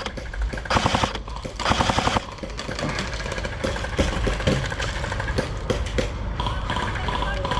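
Airsoft guns firing full-auto: three rapid bursts of shots in the first two seconds, then scattered single shots.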